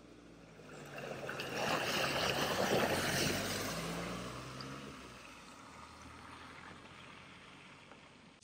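A vehicle driving through deep floodwater: its engine runs steadily under a rush of water that swells about a second in, is loudest near the middle, then fades away.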